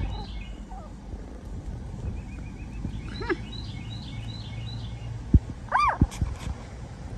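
Pomeranian puppies whimpering twice: a faint rising cry about three seconds in and a louder rising-and-falling whine near six seconds. Birds chirp in repeated short notes in the background, with a couple of sharp thumps.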